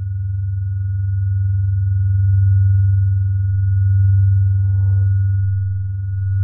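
A deep, steady electronic drone with a thin high tone held above it, slowly swelling and ebbing in loudness.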